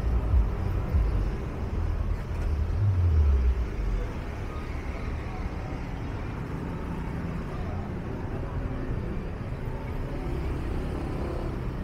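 Street ambience: a motor vehicle engine runs close by during the first four seconds, loudest there, then gives way to a steady background of traffic noise with faint voices.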